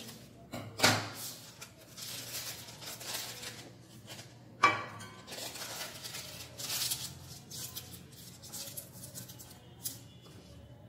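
Scissors cutting parchment paper and the paper rustling as it is handled and pressed into a round metal cake pan, with two loud sharp clicks, about a second in and near five seconds. A low steady hum runs underneath.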